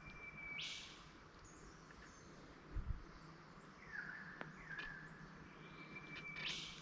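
Quiet outdoor ambience with a bird calling twice, near the start and near the end; each call is a held high note that breaks into a short, sharp higher burst. A soft low thump sounds just before the middle.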